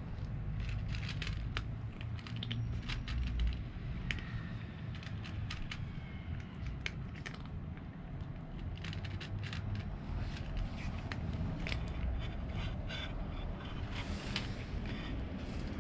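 Cat chewing dry kibble: an irregular run of crisp crunches and clicks, over a steady low rumble.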